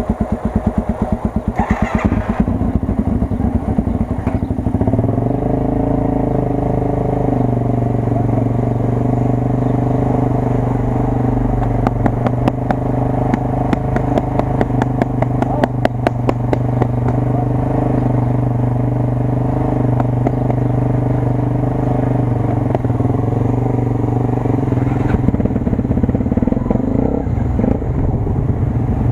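Honda XR250 Tornado's single-cylinder four-stroke engine running as the motorcycle rides. The engine note climbs and then holds steady, and eases off near the end.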